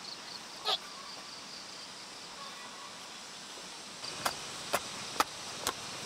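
Insects chirring steadily, with a short squeak about a second in. From about four seconds in, a hand tool strikes the ground in a steady run of sharp chops, about two a second, as someone works the garden soil.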